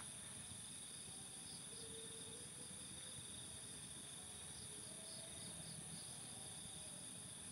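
Faint, steady chirring of night insects such as crickets, a continuous high-pitched drone with a few pulsing calls over it.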